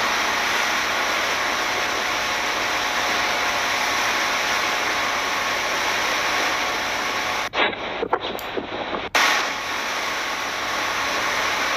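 Speedboat's outboard engine running under way with wind and water rushing past, pushing a boat heavy with its catch. About two-thirds through, the sound briefly drops out and goes muffled and choppy for a second or so.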